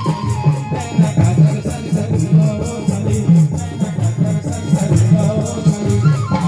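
Indian folk dance music: a drum beating about two strokes a second with a quick jingling rattle over it.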